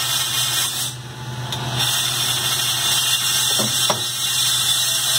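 Capstan lathe running and cutting a brass part with a turret-held drill: a steady motor hum under a high-pitched cutting hiss. The hiss drops away briefly about a second in, and two sharp knocks come near four seconds.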